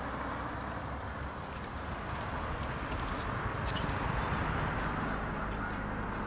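Steady outdoor roadside background noise, a continuous rush of distant traffic and air, with a few faint clicks.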